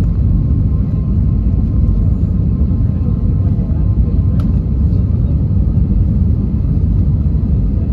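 Steady rumble of an Airbus A320's engines and rushing air, heard inside the passenger cabin on approach, with a faint steady whine. There is a single light click about four and a half seconds in.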